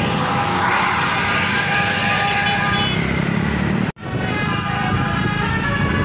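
Road traffic noise: vehicle engines running steadily on a busy road. The sound cuts out completely for a split second about four seconds in, then resumes.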